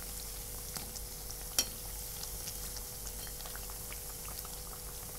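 Colocasia-leaf and urad dal vadas deep-frying in hot oil in a kadhai: a steady sizzle with small crackles as they turn golden brown. One sharp clink about a second and a half in, the steel spoon against the pan.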